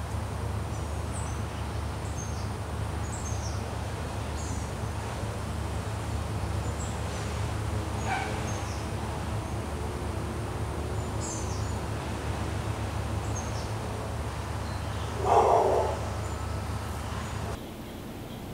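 Small birds chirping in short, high, scattered notes over a steady low rumble, with a dog barking once, loudly, about fifteen seconds in.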